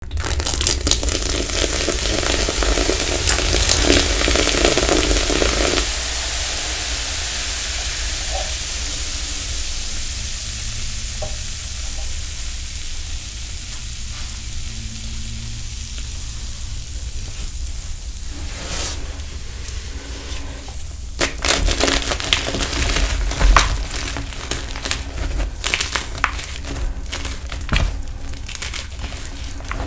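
Hot liquid sizzling and bubbling on a block of gym chalk, loudest for the first few seconds and then slowly dying away. From about two-thirds of the way in, sharp crunching and crackling as hands crush and crumble the soaked chalk.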